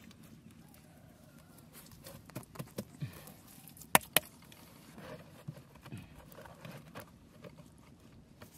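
Wet mud being handled and packed by gloved hands while plastic crates are set and pushed into it, with soft squelches and small knocks. Two sharp clicks, close together, about halfway through.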